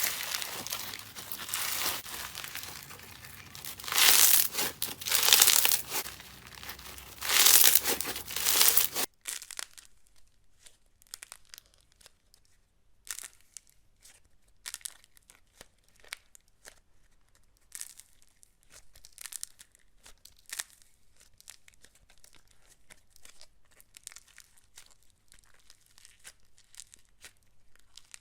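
Slime being squeezed and worked by hand, crackling and crinkling loudly with two louder swells. About nine seconds in it cuts off suddenly, leaving a much quieter run of sparse small clicks and pops.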